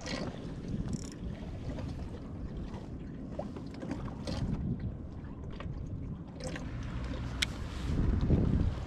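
Water lapping against the hull of a Hobie Pro Angler 14 kayak, with wind buffeting the microphone and a few light clicks of handled gear. A stronger gust of wind comes just after eight seconds in.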